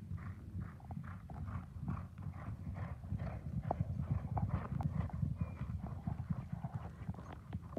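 Hoofbeats of three racehorses galloping on a sand training track: a steady, muffled drumming of about three beats a second that grows louder in the middle as the horses pass close, with a single sharp knock at the end.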